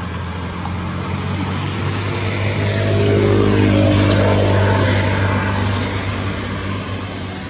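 A motor engine passing by out of view: a low, steady hum that swells to its loudest about halfway through and then fades.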